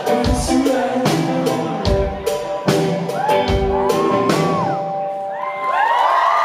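Live pop-rock band ending a song: drum hits under held chords, then the notes hang on. Near the end the audience breaks into cheering and whoops.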